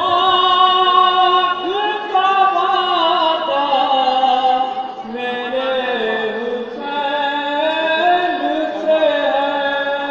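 Devotional singing in long, held notes that waver and glide in pitch, with a short break about halfway through.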